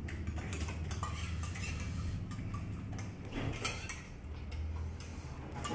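Stainless steel cups, spoon and plates clinking and knocking now and then, with a steady low hum underneath.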